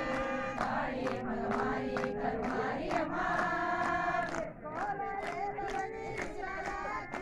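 Group of voices singing a Tamil devotional chant to the mother goddess in unison, long held notes that glide from one pitch to the next, over a regular beat of sharp strikes.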